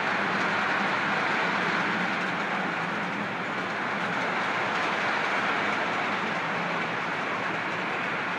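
Model trains running on a double-track layout, crossing a bridge in opposite directions: a steady rolling rush of small wheels on the rails.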